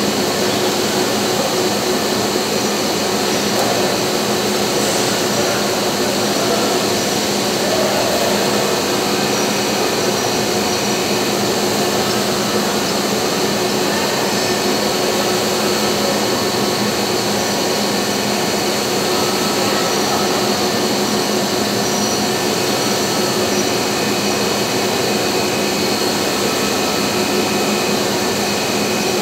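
Steady drone of running workshop machinery, an even noise with a few constant hums in it.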